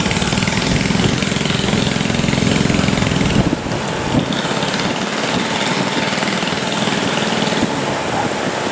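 Boat engine running, with a heavy low rumble that drops away about three and a half seconds in, leaving a steadier, lighter hiss.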